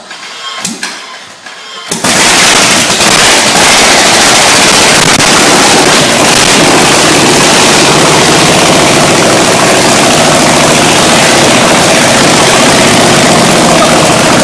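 Rolls-Royce Merlin-based V-twin engine on a test stand firing up about two seconds in, then running very loud through an open exhaust as a rapid, rattling stream of firing pulses.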